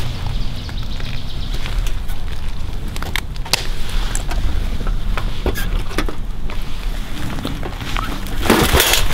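Wire-mesh cage trap rattling and clicking as it is handled, with leafy brush rustling against it, over a steady low rumble; a louder rustle comes near the end.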